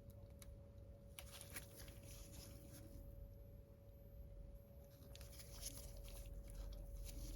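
Near silence: faint rustles and small ticks of nail-art stickers being handled and peeled from a sticker sheet, over a steady faint hum.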